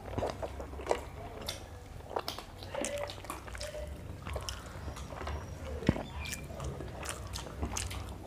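Two people eating chicken curry and paratha with their hands: irregular chewing and wet mouth clicks over a low steady hum.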